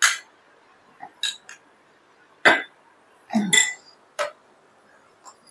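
Metal spoon clinking against a small glass bowl and plate as food is scooped and served: a handful of separate sharp clinks, the loudest about two and a half seconds in, with a duller knock about a second later.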